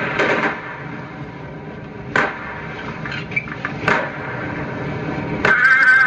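Sharp knocks, about two seconds apart, over a steady low rumble, followed near the end by a loud wavering high-pitched buzz that keeps going.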